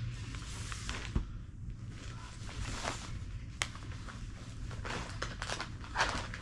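Scattered light knocks, taps and rustles of things being handled, over a steady low hum.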